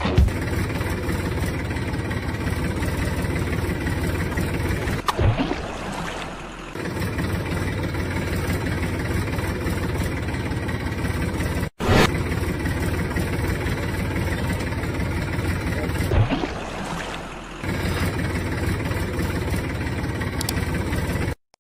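Tractor engine running steadily, with the sound dipping and changing pitch about five seconds in and again about sixteen seconds in, and a very short break near the middle.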